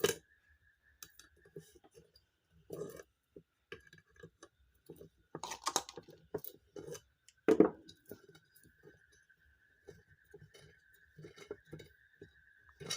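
Scattered metal clinks and knocks as the parts of a ceiling fan, just opened, are handled and separated; the loudest knock comes about seven and a half seconds in.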